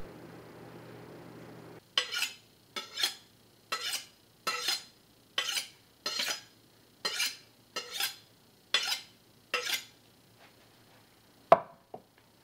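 About a dozen quick scraping strokes of steel on steel: a chef's knife being honed on a honing steel, some strokes coming in quick pairs. Near the end comes a single loud, sharp metal clack.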